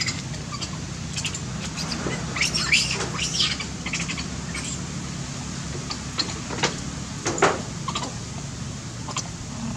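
Scattered short, high chirps and squeaks of animal calls, bunched a couple of seconds in and again past the middle, over a steady low hum.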